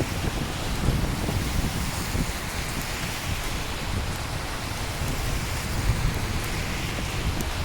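Steady heavy rain falling on hard surfaces, with a low rumble of thunder underneath.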